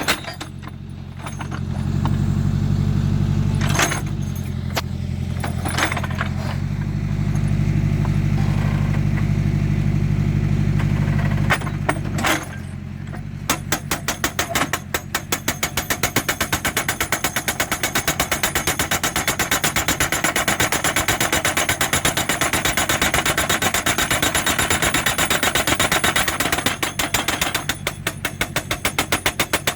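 JCB 3D backhoe loader with a hydraulic rock breaker: for about the first twelve seconds the diesel engine runs hard with only a few single knocks, then the breaker starts hammering the rock in rapid, even blows that continue to the end.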